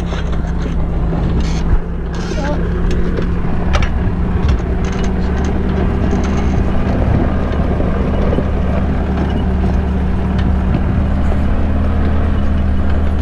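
Farm tractor engine running steadily under way, heard from close behind on the mounted rear implement, with a few sharp rattles in the first few seconds.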